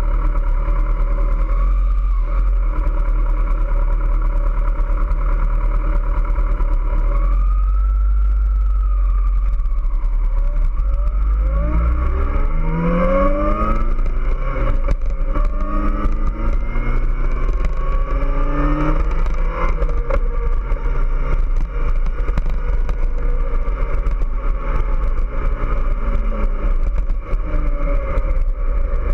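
Kawasaki ZX-14R's 1441 cc inline-four running steadily at a standstill, then pulling away about twelve seconds in and accelerating up through several gears, the engine note rising and dropping back at each shift.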